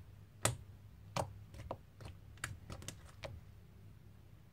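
Homemade glue slime being squished and stretched by hand, giving off irregular wet clicks and pops, a few of them sharper and louder.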